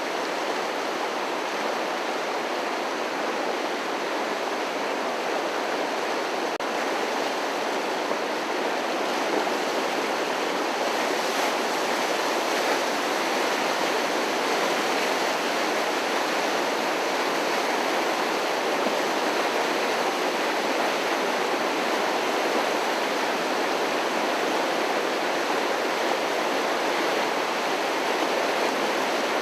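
Flooded Fish Creek rushing past in a steady, continuous roar of fast-moving water.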